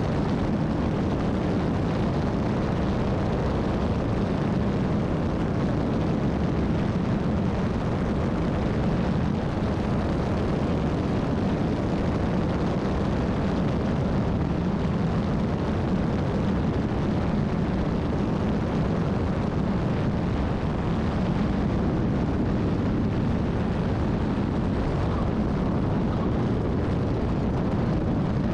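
Single-engine light aircraft's propeller engine and rushing airflow, a steady roar of wind noise on an outside-mounted camera, through the approach and descent to the runway.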